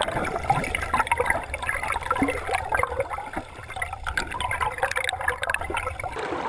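River water gurgling and bubbling close around a camera held in the water, full of quick bubbly pops over a low rumble. Near the end it gives way to a more even rush of stream water.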